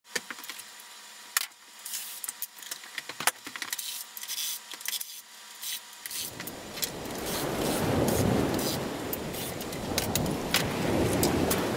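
Sharp plastic clicks and rattles as an upright vacuum cleaner is taken apart by hand. About six seconds in, a louder, rough scraping and rustling begins as its parts are pulled off and handled.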